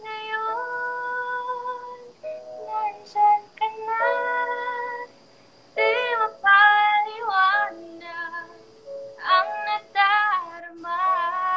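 A woman singing a slow ballad, phrases of long held notes that waver slightly, broken by short pauses.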